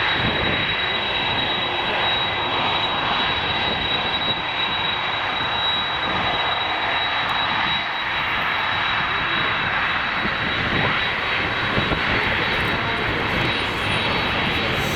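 Boeing 747 jet engines running steadily: a broad, even rushing noise with a thin high whine on top.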